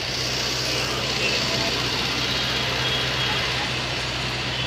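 Busy street noise: a vehicle engine idling steadily under a general din of traffic and distant voices.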